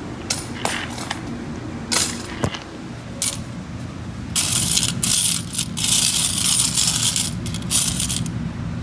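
Quarters clinking and jingling in the stainless metal coin tray of a bulk candy machine as a hand stirs them. There are a few separate clinks first, then a dense run of jingling from about four seconds in until near the end, over a steady low hum.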